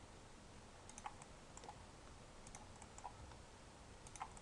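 Faint, scattered clicks of a computer keyboard and mouse, about half a dozen over a few seconds, against near silence.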